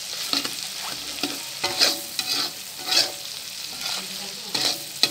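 Metal spatula scraping and stirring scrambled egg and sausage pieces in a wok, in repeated short strokes over a steady frying sizzle.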